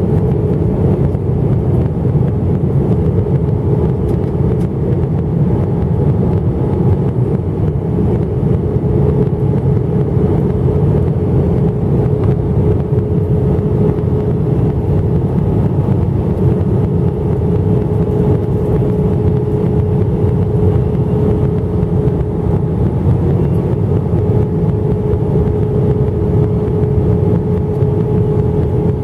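Cabin noise inside an Airbus A319 airliner descending on approach, heard from a window seat over the wing: a steady deep rumble of engines and airflow. A steady hum rides on top, growing clearer about eight seconds in.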